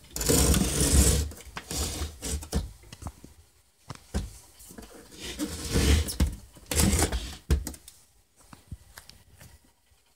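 Handling noise from a black plastic Bosch pod coffee maker: scraping and rubbing against a stone countertop, with clicks and knocks of its plastic casing. The loudest scraping comes in the first two seconds and again around six seconds in.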